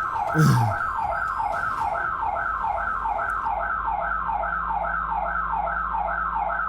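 Electronic burglar-alarm siren wailing in rapid downward sweeps, about three a second, set off by the break-in attempt at the front door; it starts abruptly at the opening. Heard through the doorbell camera's microphone.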